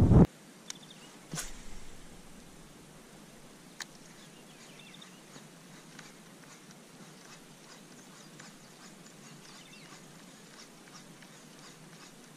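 Faint open-air background with a few soft clicks and brief high chirps. A short loud noise at the very start cuts off abruptly.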